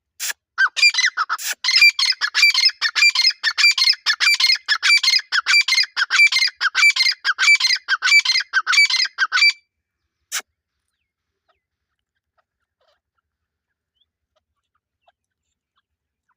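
Grey francolin (teetar) calling in a fast, harsh, rapidly repeated series of about five notes a second for roughly nine seconds, then stopping abruptly; a single click follows about a second later.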